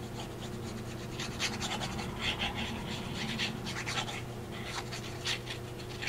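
Fine-tip liquid glue bottle's nozzle dragging across the back of a paper circle as glue is squeezed out: faint, irregular scratchy strokes.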